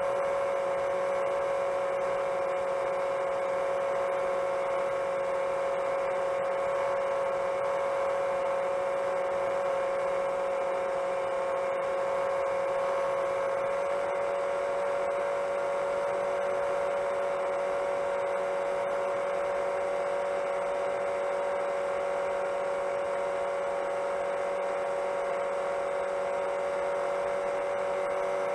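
Motors and propellers of a 7-inch long-range FPV quadcopter whining at a steady cruise: one held tone with overtones, shifting slightly in pitch about halfway through.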